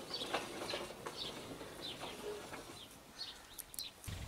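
Birds chirping, a scatter of short high falling chirps, over the faint rolling and grinding of home-made steel railway wheels on steel flat-bar rails.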